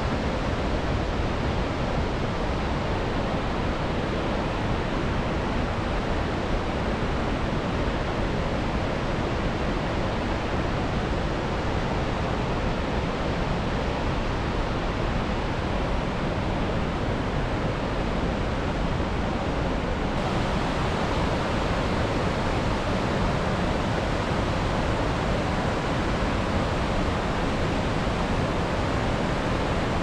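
Steady rushing of a mountain waterfall and the white-water rapids below it, the Cascada del Estrecho.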